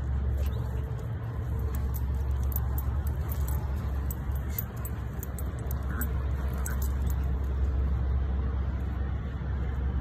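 Steady low rumble of wind buffeting the phone's microphone, with faint light clicks and jingles of the dogs' collar tags and leash clips.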